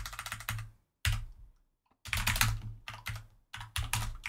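Rapid typing on a computer keyboard, fast runs of keystroke clicks in bursts, with a pause of about a second partway through.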